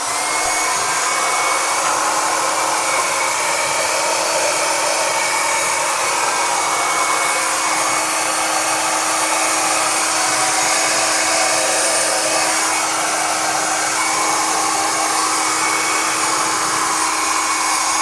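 Small handheld hair dryer running steadily on, with a constant hum under the rush of air, being used to blow-dry washed stainless steel tumblers. It switches on right at the start.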